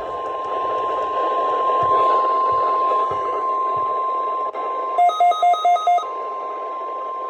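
NOAA Weather Radio's 1050 Hz warning alarm tone: one steady high tone heard through a weather radio receiver over a hiss of static, opening a Required Weekly Test broadcast. About five seconds in, five quick beeps sound over it, and the tone cuts off suddenly at the end.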